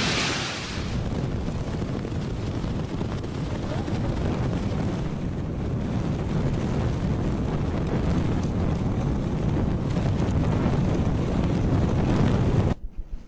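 Typhoon wind buffeting the camera microphone, a dense low rumble mixed with the hiss of driving rain. It cuts off suddenly near the end.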